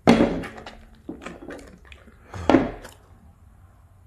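Ceramic bowl knocked and clattering on a wooden tabletop as a dog noses it over to get at a treat: a sharp knock at the start, lighter knocks over the next second or so, and another loud knock about two and a half seconds in.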